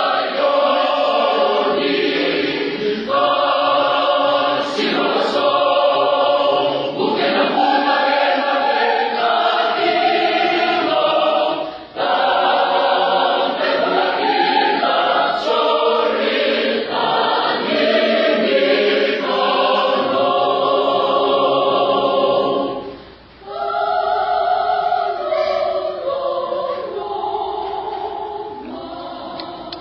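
Mixed youth church choir of women and men singing a choral piece in Fijian, unaccompanied. The singing breaks off briefly about twelve seconds in and again about twenty-three seconds in, then grows softer near the end.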